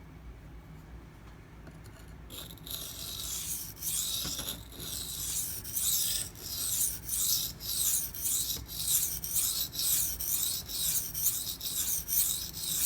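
Maxamet steel knife blade being stroked back and forth on a 240-grit silicon carbide sharpening stone to set the main bevel: a steady run of scratchy strokes, about two a second, starting a couple of seconds in.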